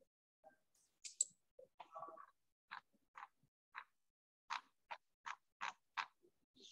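Faint short clicks or taps, a string of them from about two and a half seconds in, coming roughly two a second, with a brief hiss about a second in.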